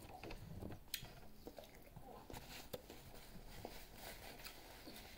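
Near silence with faint eating noises: scattered soft clicks and taps, with one sharper tick about a second in.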